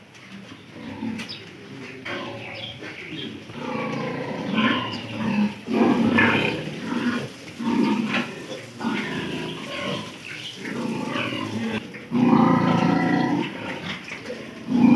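A group of piglets grunting, the calls coming thicker and louder from about four seconds in.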